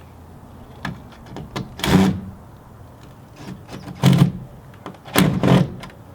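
A series of knocks and clunks: small ticks, then a louder clunk about two seconds in, another near four seconds and a double clunk a little after five seconds.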